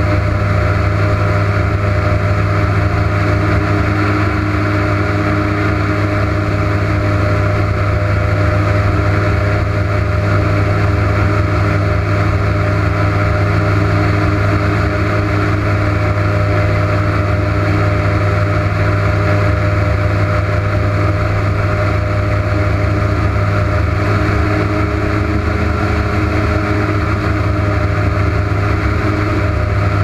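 Airboat's engine and propeller running steadily at cruising speed: a loud, constant drone that holds the same pitch throughout.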